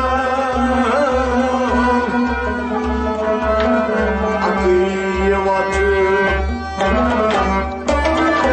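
Harmonium playing an instrumental passage of a Kashmiri Sufi song over a steady hand-drum beat.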